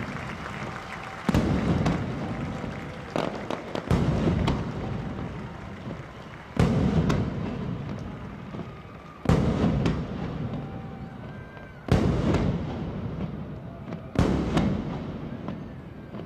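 Aerial fireworks shells bursting, about eight booms one every two to three seconds. Each boom is followed by a long fading rumble.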